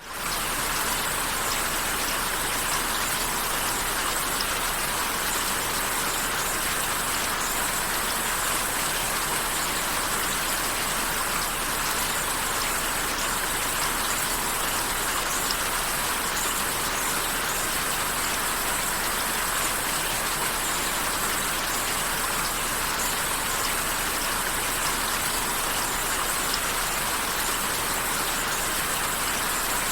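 Steady rain falling: an even hiss with a few faint drop ticks scattered through it, fading in at the very start.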